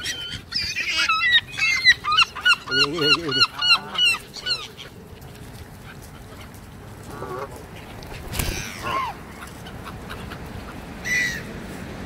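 Canada geese honking among gull calls: a rapid run of repeated, pitch-bending calls for the first few seconds, then a few scattered calls later.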